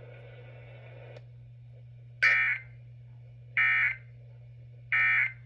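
Emergency Alert System end-of-message data tones: three short, identical bursts of shrill digital squawk, about 1.3 seconds apart, signalling the end of the alert. A steady low hum runs underneath.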